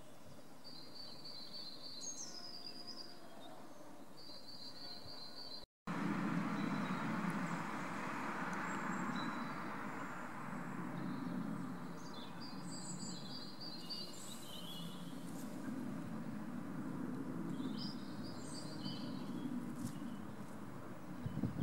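Small birds singing in short repeated trills and quick sweeps over a steady rushing background noise. The sound cuts out for a moment about six seconds in, and the rushing is louder afterwards.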